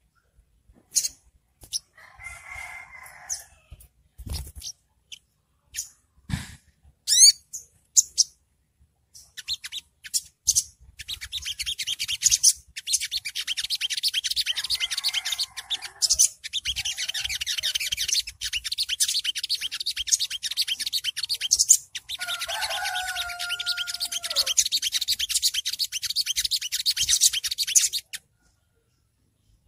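Olive-backed sunbird (sogok ontong) singing. At first it gives scattered sharp chirps, then from about ten seconds in a long, rapid, high twittering trill (the 'ngriwik' song) that runs with only brief breaks until near the end. A rooster crows in the background partway through the trill.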